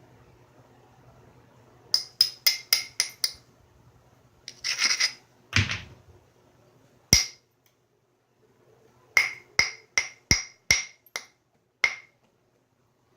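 Hammerstone tapping and striking the edge of a stone point being knapped: a quick run of about six light ringing taps, a short scrape, a deeper knock, one sharp crack, then another run of about seven taps. The taps suit preparing and striking platforms along the edge.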